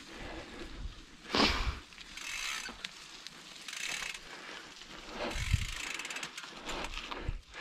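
Bicycle rear freehub ticking as the wheel turns freely without pedalling, with a loud clunk about a second and a half in and a smaller one about five and a half seconds in.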